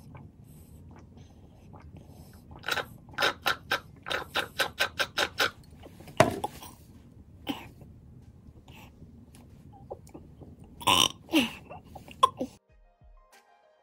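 A man burping over and over: a quick run of short burps a few seconds in, a couple of single burps, then a few longer burps that fall in pitch near the end.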